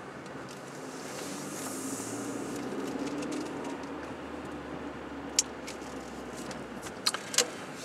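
1993 Toyota Camry's 2.2-litre four-cylinder petrol engine and tyres running steadily inside a concrete parking garage, the hum rising a little about a second in. A few sharp clicks come in the last few seconds.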